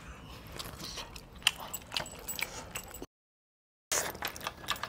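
Close-up eating sounds: scattered wet mouth smacks and clicks of chewing, with meat torn by hand from a platter of chicken. The sound cuts to dead silence for nearly a second a little after three seconds in, then the smacking resumes.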